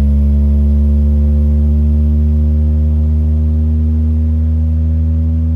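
Two Kicker Solo X 12-inch subwoofers playing a loud sine test tone from a phone tone generator, a steady deep bass hum rising slowly in pitch from about 71 Hz to the upper 70s Hz. The subwoofers are being warmed up, or broken in, on 2500 watts into a 1-ohm load.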